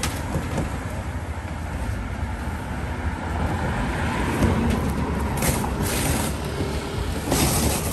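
Large cardboard motorcycle crate being opened, its big flaps scraping and rustling in two bursts in the later part, over a steady low rumble of street traffic.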